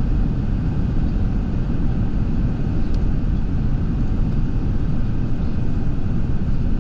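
Steady low rumble of a moving vehicle, heard from inside it.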